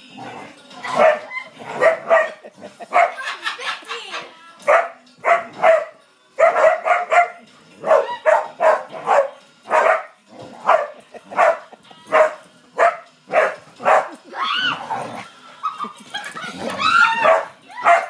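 Spaniels barking over and over, about two sharp barks a second, while a blue-and-gold macaw chases them. Near the end come higher, wavering calls.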